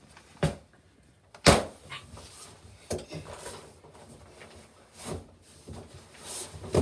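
Several short knocks and thumps a second or two apart, the loudest about a second and a half in, with faint rustling between them.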